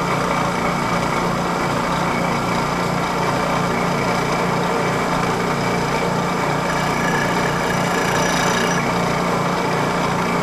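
Vertical milling machine with a fly cutter taking a facing cut across a brass plate: a steady machining drone with a fast, regular pulsing.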